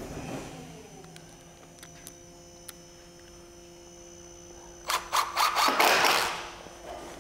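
Cordless drill-driver driving a screw through a steel fascia bracket into a timber frame. A few short spurts come about five seconds in, then a run of about a second that stops abruptly.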